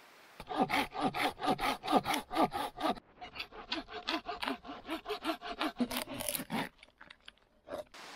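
Hand saw cutting through wood in quick back-and-forth strokes: two runs of about three seconds each, then a couple of last strokes near the end.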